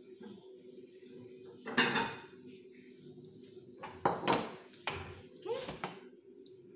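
Kitchen pans and utensils clinking and knocking: a loud clatter about two seconds in, then a few more knocks between four and six seconds, over a steady low hum.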